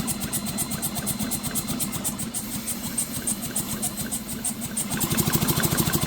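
Power drill spinning over the McCulloch 5-10E chainsaw's engine, the piston turning over in a fast, even pulse. It gets a little louder about five seconds in.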